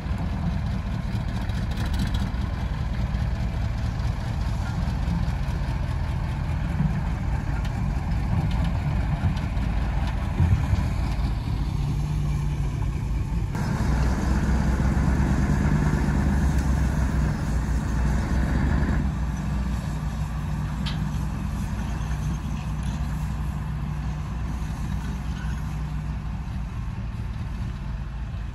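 Heavy diesel engines of a Hitachi ZX210 excavator and a Mercedes-Benz SK 2644 truck running steadily. The engine sound grows louder and fuller for about five seconds past the middle, then settles back. A few short knocks come early on.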